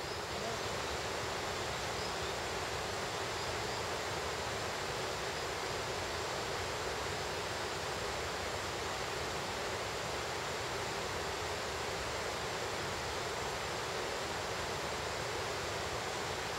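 Steady rush of flowing stream water, an even hiss with no distinct splashes.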